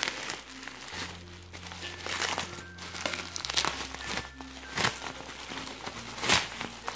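Plastic bubble-wrap packaging crinkling and rustling in the hands as it is pulled open, with a few sharper crackles. Faint background music with a slow bass line plays under it.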